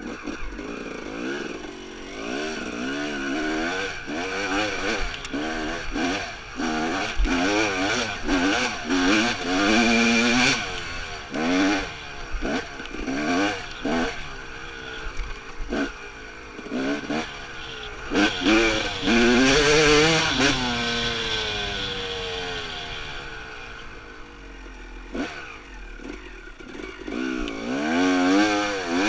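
Dirt bike engine revving up and down over and over as the throttle is worked and the gears change, with short knocks and rattles from the bike over rough ground.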